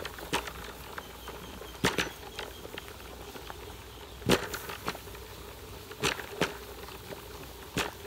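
Water boiling hard in a metal wok over a wood fire, with about seven sharp, irregular pops and crackles spread across a few seconds.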